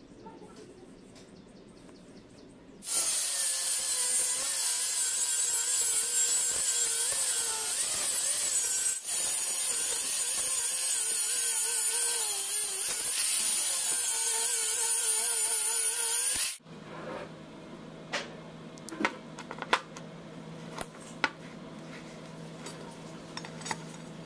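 Angle grinder with a thin cut-off disc cutting through a steel block, a hiss with a wavering whine on top, starting about three seconds in and running for about fourteen seconds with a brief dip midway. After it stops come a few sharp metal clicks as the cut steel pieces are handled.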